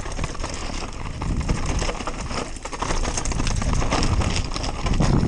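Mountain bike riding fast down a rough dirt trail: tyres rolling over loose dirt and stones, with a dense, irregular clatter of knocks and rattles from the bike over the bumps.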